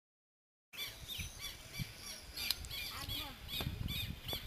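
Silence, then from under a second in, many birds chirping in quick, overlapping calls over a low, uneven rumble.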